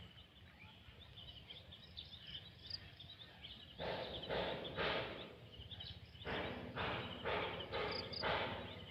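Footsteps crunching on gravel, about two a second, start about four seconds in. Faint high bird chirps sound throughout.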